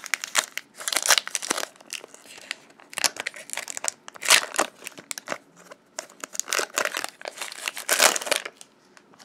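A Magic: The Gathering booster pack's foil wrapper being torn open and crumpled, crackling and crinkling in three bunches of quick rustles with short pauses between.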